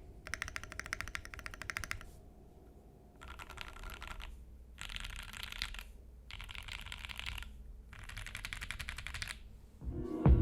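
Rapid typing on a Graystudio Think 6.5 v2 mechanical keyboard with lubed C3 Equalz Banana Split linear switches on an FR4 plate, in about five bursts of fast keystrokes separated by short pauses. A louder sound comes in just before the end.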